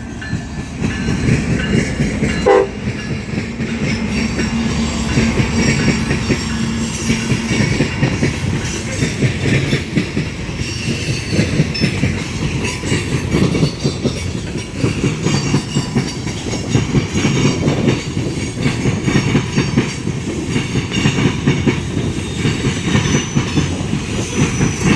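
Union Pacific grain train rolling past close by, its car wheels clattering and rumbling steadily over the rails. A horn note is held for several seconds near the start.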